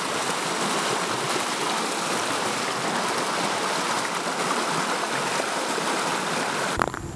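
Shallow mountain stream rushing over rocks: a steady, dense rush of white water that cuts off abruptly near the end.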